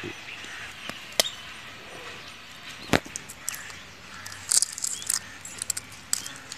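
Shell of a hard-cooked chicken egg being cracked and picked off by hand: sharp clicks, the loudest about three seconds in, then a run of small crackles as shell pieces come away near the end. The shell comes away cleanly, which the cook takes as the sign that the egg is cooked through.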